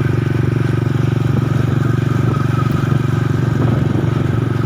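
Small motorcycle engine running at a steady pace while being ridden, a continuous low drone with a fast, even pulse.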